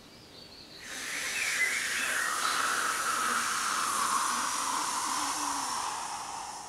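A steady rushing hiss that swells in about a second in, holds, and fades near the end, with a faint tone inside it that slowly falls in pitch.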